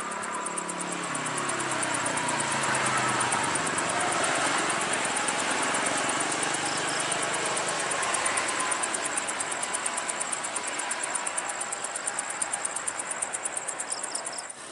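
Toll-road traffic going by: coaches and cars pass with a steady rush of tyres and engines, and one engine note falls in pitch over the first few seconds as the vehicle moves off.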